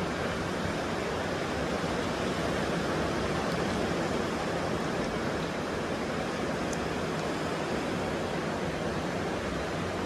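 Ocean surf breaking on the beach, heard as a steady, even hiss with no distinct crashes.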